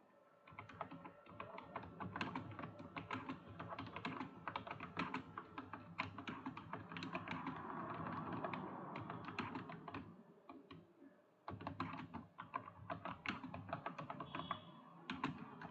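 Computer keyboard being typed on quickly: a fast, uneven run of key clicks that breaks off for about a second partway through, then starts again.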